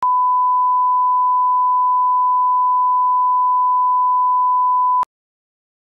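Steady 1 kHz line-up reference tone, a single pure tone of the kind that runs with colour bars at the head of a broadcast tape. It lasts about five seconds and cuts off abruptly.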